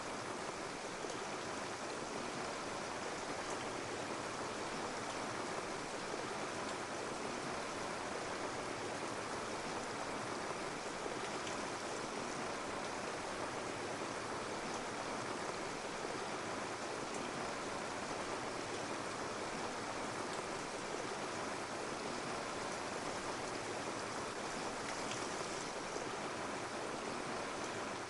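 Steady rushing of flowing water, like a forest stream.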